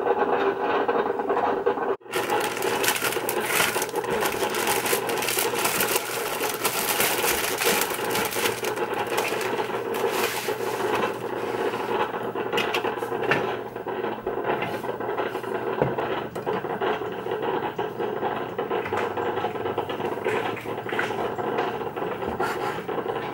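Food prep at a counter: a plastic bread bag crinkles as the loaf is handled and unwrapped, then a bread knife saws back and forth through the loaf on a bamboo cutting board, giving repeated scraping strokes.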